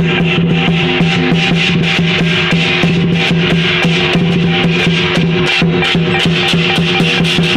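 Lion-dance percussion band playing: a drum beaten in a fast, even rhythm with cymbals clashing, over a steady ringing tone.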